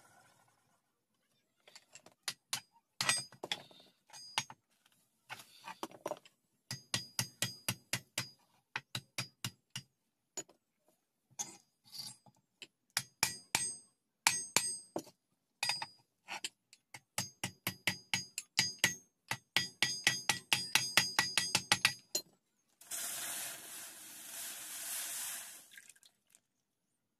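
Hammer tapping an iron cutter blade into its wooden handle: runs of sharp, ringing metal blows, several a second, with short pauses between. Near the end, about three seconds of steady scraping noise.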